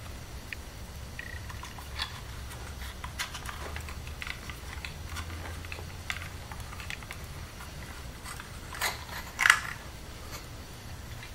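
Plastic wire nuts being twisted onto the spliced wires of a dimmer switch and extension cord: scattered light clicks and scrapes of handling, with a couple of louder clicks late on, over a low steady hum.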